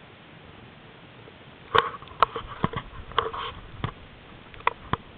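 Camcorder handling noise: a run of short, irregular clicks and knocks starting a little under two seconds in, over a steady hiss.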